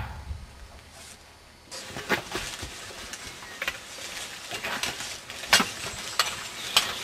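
A low rumble fades in the first second, then a group of men move through undergrowth: footsteps, rustling leaves and irregular clicks and knocks of carried weapons and equipment.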